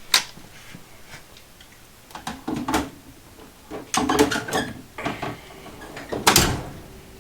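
A series of separate knocks and clacks from cordless power tools being handled and set down, hard plastic and metal against a tabletop, the loudest about six seconds in.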